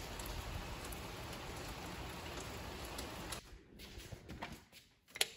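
Steady hiss of rain falling outdoors, which cuts off abruptly about three seconds in. A few soft knocks follow, then a sharp click near the end.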